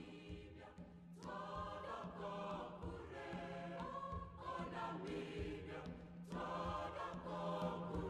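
Soundtrack music: a choir of voices singing held, changing chords over a steady low drone note.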